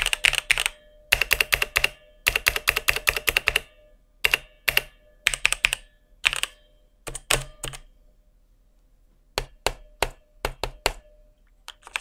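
Typing on a Tecware Phantom 96 mechanical keyboard with hot-swap Outemu switches: quick runs of keystrokes for the first several seconds, then a few single presses near the end. A faint metallic ping rings on after the strokes; the board is quite pingy.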